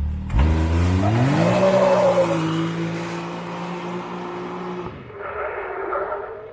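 Can-Am Maverick X3's turbocharged three-cylinder engine at a full-throttle launch: the revs climb quickly over the first second or so, then hold high with tyre and rushing noise as the car pulls away, and drop off about five seconds in. A fainter rasp follows near the end.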